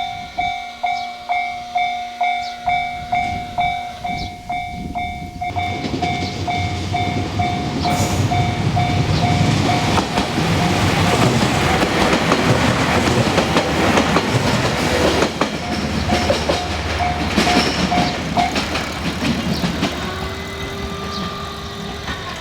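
Japanese level-crossing warning bell ringing at about two strikes a second while a train passes over the crossing, its running noise and wheel clatter building to a peak in the middle; the bell stops a few seconds before the end.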